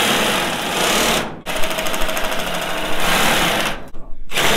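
Cordless drill powering a DeWalt metal shears attachment, cutting corrugated sheet-metal roofing with a loud, rapid chatter. It stops briefly about a second and a half in and again near the end, then starts up once more.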